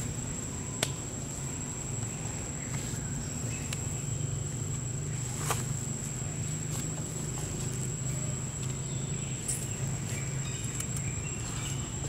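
Steady high-pitched insect drone in forest ambience, over a low steady hum, with a few short sharp clicks, the most distinct about halfway through.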